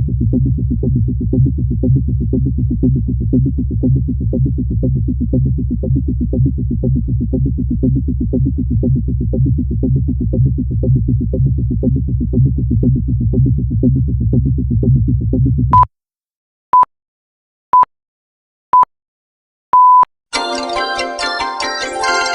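Electronic background music with a steady pulsing beat that cuts off suddenly; then four short beeps one second apart and a longer fifth beep, like a countdown timer, followed by bright chiming music.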